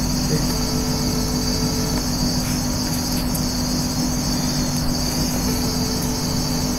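Steady high-pitched chirring background with a low steady hum beneath it, unchanging throughout.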